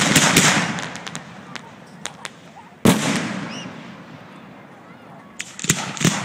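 Aerial firework shells bursting: a loud bang at the start and another about three seconds in, each followed by a fading rumble, with scattered smaller pops and crackles between them and a quick cluster of pops near the end.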